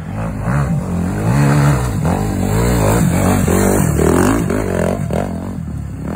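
Enduro motorcycle engines revving up and down over and over as the bikes work through rough ground, one passing close by.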